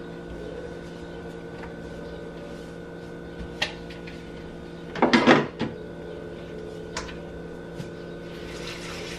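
Dishes and kitchen items being moved and set down at a sink during cleanup: a few light knocks and one louder clatter about five seconds in, over a steady low hum.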